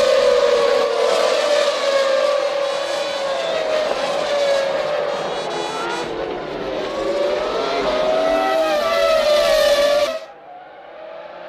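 Formula One cars' 3-litre V10 engines screaming at high revs, the pitch rising and falling with gear changes and passes. About ten seconds in the sound cuts off suddenly to a much quieter engine note.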